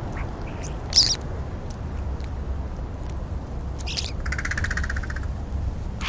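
European starlings calling at a food pile: a short sharp squawk about a second in and another near four seconds, then a harsh buzzy rasp lasting nearly a second. A steady low rumble runs underneath.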